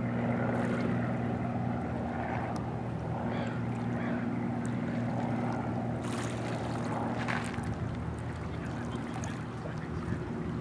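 A distant engine drones steadily, a low hum with several steady pitches, over a soft hiss of wind and water.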